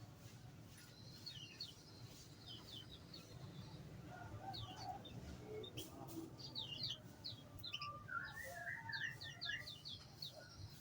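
Small aviary birds chirping: repeated clusters of short, high chirps, with a lower warbling phrase about eight seconds in.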